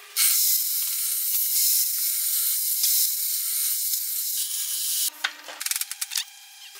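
Table saw blade cutting through a wooden post, a loud steady hiss of the cut for about five seconds that stops sharply. After it, quieter clicks and a faint hum.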